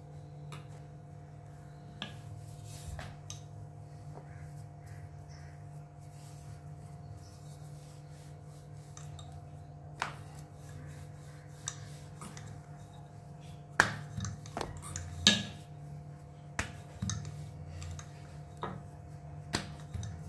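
Dough being rolled out with a rolling pin on a granite counter: scattered sharp clicks and knocks, several close together about two-thirds of the way through, over a steady low hum.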